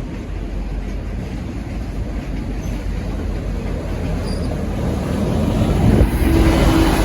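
V/Line N class diesel locomotive and its train rumbling at the platform, the sound growing steadily louder. A steady low tone joins in near the end.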